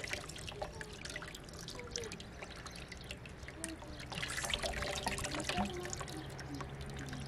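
Water trickling and splashing in small irregular splashes, with a denser run of splashing about four seconds in.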